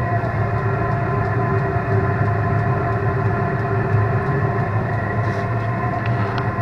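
Chinese 2 kW diesel air heater running on its highest setting with no exhaust pipe fitted: a loud, steady drone of its combustion fan and burner, held at one pitch.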